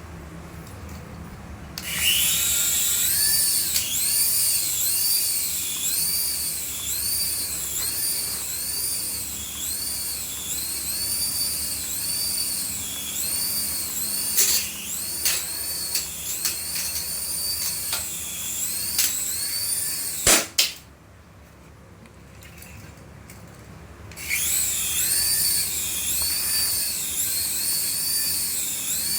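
Battery-operated light-up toy vehicle playing its electronic sound effect, a repeating warbling siren-like whistle over a motor whir. It switches on about two seconds in, cuts off with a click around twenty seconds, and comes back on a few seconds later.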